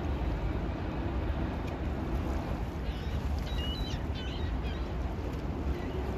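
Steady low rumble of wind on the microphone, with a short run of small bird chirps about three to four and a half seconds in.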